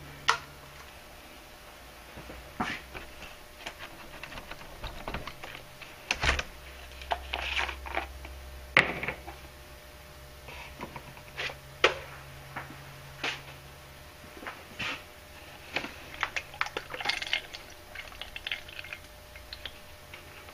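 Scattered plastic clicks and crinkling as a spray gun's disposable cup liner is handled and squeezed to empty out the leftover sealer, with a faint low hum for several seconds midway.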